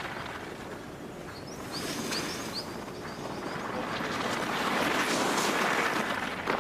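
Skis scraping and hissing over hard race-course snow, swelling in loudness about four seconds in as the skier passes close, with a few short high squeaks from the edges.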